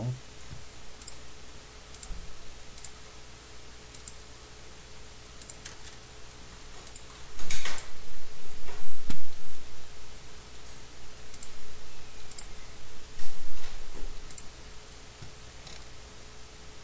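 Scattered clicks of a computer mouse and keyboard, with a denser, louder run of clicks around the middle, over a faint steady hum.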